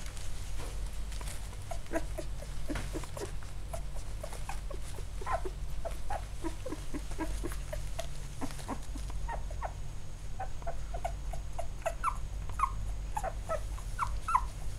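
Eight-day-old Labrador Retriever puppies squeaking and whimpering: many short, high squeaks, coming thicker toward the end, over a steady low hum.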